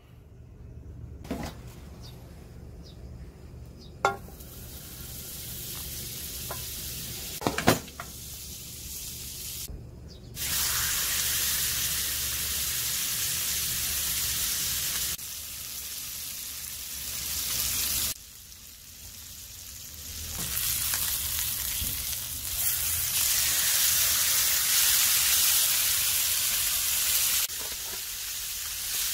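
Beef sirloin steak in olive oil sizzling in a grill pan on a portable gas stove. A few sharp clicks come first, then the sizzling starts loudly about ten seconds in, its level jumping up and down several times.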